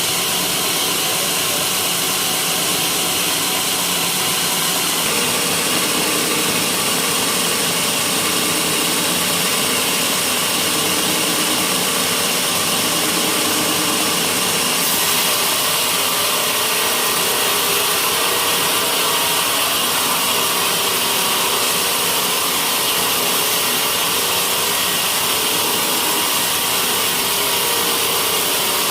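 Homemade sawmill's saw blade cutting through a white teak beam, steady and unbroken, its tone shifting slightly about five seconds in.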